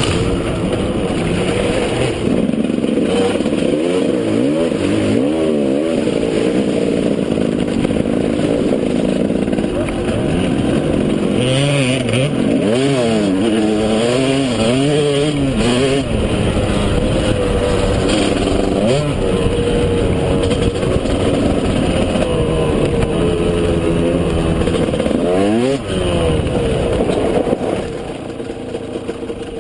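KTM 200 EXC two-stroke single-cylinder engine running under a rider, its pitch rising and falling over and over as it revs up and eases off through the gears. It quietens near the end as the bike slows.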